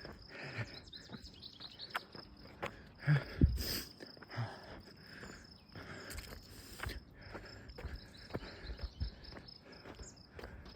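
Footsteps at an irregular pace, short scuffs and thuds, over a steady high-pitched trill of crickets.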